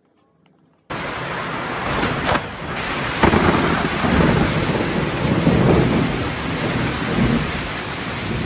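Heavy rain pouring down in a thunderstorm, with low rolling thunder swelling under the rain noise. It starts abruptly about a second in.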